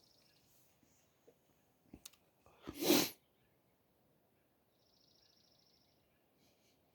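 A man coughs once, loudly and briefly, about three seconds in, after a few small clicks.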